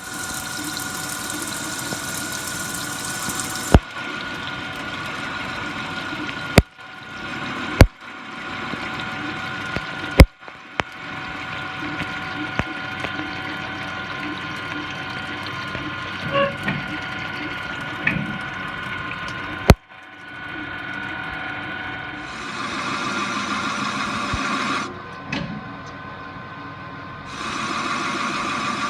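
Machine tool cutting a turbocharger housing for a 16G-to-20G upgrade: a steady machining noise with a constant whine, broken by a few sharp clicks, growing louder and harsher in two cutting passes near the end.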